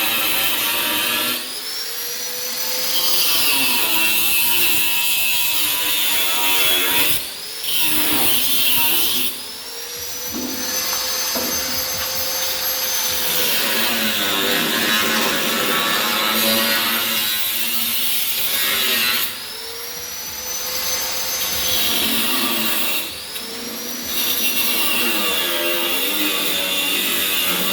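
Handheld electric power tool working on the Vespa PX body's sheet metal in repeated runs. Each run rises in pitch as the tool spins up and falls as it is let off, with short breaks about five times.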